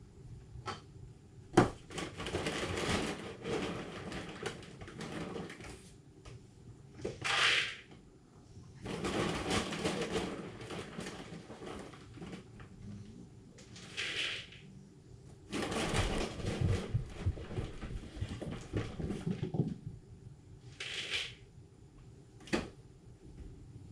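Raccoons feeding and jostling close up: spells of crunching, scuffling and rustling, three short harsh hisses as they squabble over the food, and a couple of sharp knocks.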